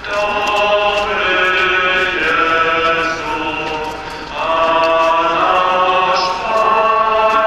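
A slow hymn sung by many voices in long held notes, with a short break about four seconds in.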